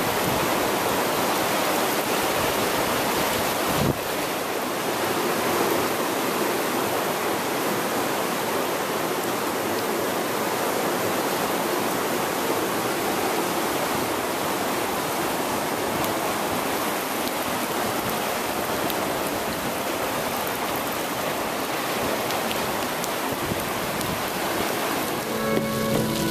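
Steady rush of floodwater in a swollen creek, with a short knock about four seconds in.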